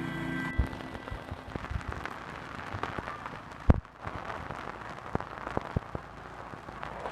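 Irregular sharp clicks and knocks over a faint hiss, with one louder thump about three and a half seconds in; background music cuts off just after the start.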